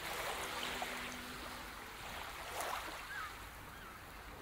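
Faint ambience of water washing, fading away, with a few short high chirps in the second half.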